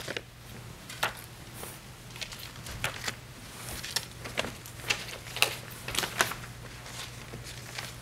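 Sheets of paper being shuffled and handled: scattered short rustles and soft clicks, over a faint steady low hum.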